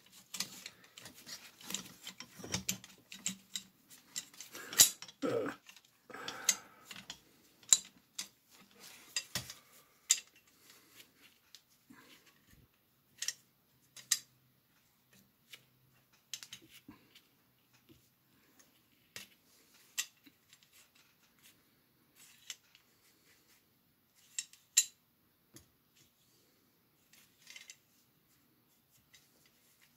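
Small metal clicks and clacks of an M1 carbine's bolt and receiver being handled by gloved hands while the bolt is worked for removal and resists coming out. The clicks are irregular, dense in the first ten seconds or so and sparse after that.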